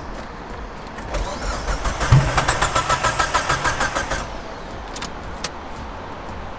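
Mitsubishi Evo 8's 4G63 four-cylinder cranking on the starter for about three seconds, pulsing about six times a second, then stopping without catching. The owners blame a fault in the fuel system for the failure to start.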